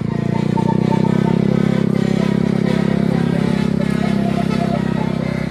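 A vehicle engine running steadily under load with a deep, even drone that swells slightly about a second in.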